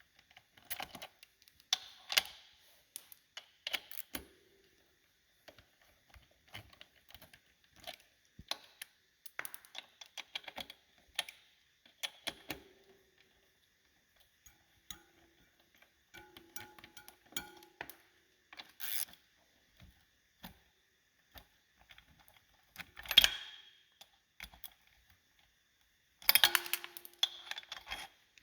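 Hand tools working 10 mm bolts on a motorcycle's front wheel: irregular metallic clicks and clinks, with a louder clank about two-thirds of the way through and a quick flurry of clatter near the end.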